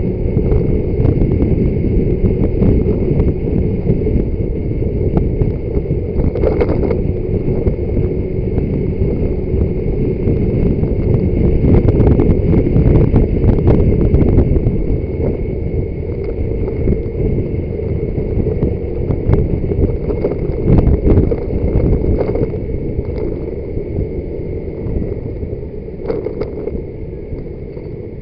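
Wind rushing over a motorbike dashcam's microphone while riding, with engine and road rumble underneath. It grows louder about halfway through and eases off toward the end.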